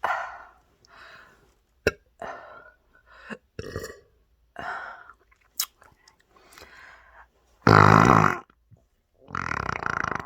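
A woman burping into a pillow: a string of short, smaller burps and a few sharp clicks, then two long burps near the end, the first of them the loudest.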